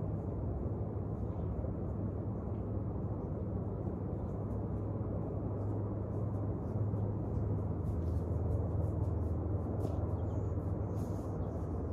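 Steady low outdoor rumble with no speech, with faint light clicks and a few brief high sounds in the second half.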